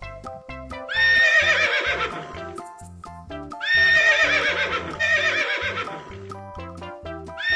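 Horse neighing three times, each a loud quavering call that falls away, over upbeat children's background music.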